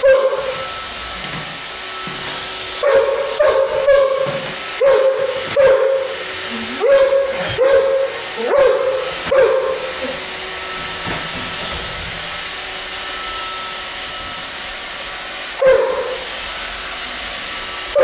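German shorthaired pointer giving short, high-pitched barks at an iRobot Roomba, about ten in quick succession, then a pause of several seconds before one more near the end. Under them runs the steady hiss of the robot vacuum.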